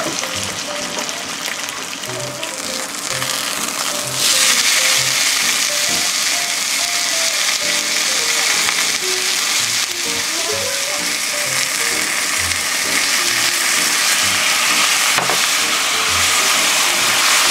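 Chicken thighs sizzling in a frying pan, the sizzle growing suddenly louder about four seconds in.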